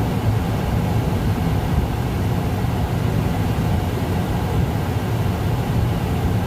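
Tractor engine running steadily under load, driving a grain cart's unloading auger through the PTO as the cart nears empty: a constant low rumble.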